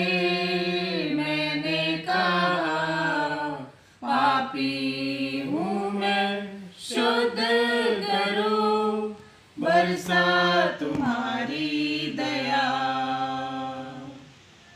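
A small group of men and women singing a Hindi penitential hymn unaccompanied, in long held phrases with short breaks between them. The last phrase fades out near the end.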